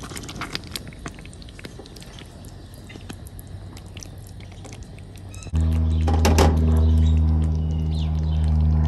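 Spatula stirring stew in an enamelled cast-iron pot, with light scattered clicks and scrapes. About halfway through, a loud steady low hum with several overtones starts abruptly and holds.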